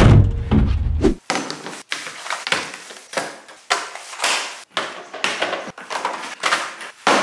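A wooden board thuds into a pickup truck bed. Then, from about a second in, a plastic shopping bag rustles and crinkles in short irregular bursts as hardware parts are pulled out and set down on a plastic folding table.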